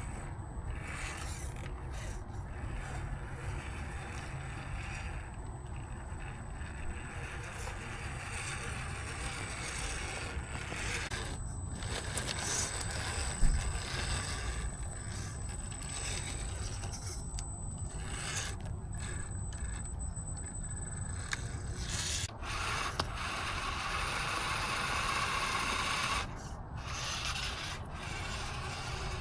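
Axial Capra RC trail truck crawling over rough ground: its electric motor and gears whine while the tyres and chassis scrape and rub, with a sharp knock about 13 seconds in. A thin high whine holds steady through the middle, and a louder, brighter stretch of running cuts off suddenly near the end.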